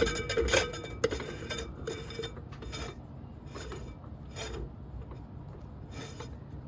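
Bottom cap of a Modern Fan Company Cirrus ceiling fan being screwed back onto the switch housing, with short scraping, rasping strokes as the threads turn, quick at first and then every second or two.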